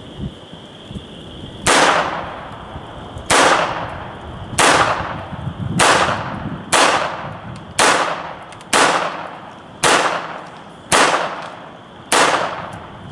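Smith & Wesson Model 41 target pistol firing ten shots, about one a second, each a sharp crack with a short fading tail. The pistol cycles through the whole string without a stoppage, fed from a new magazine with a nylon follower that now works.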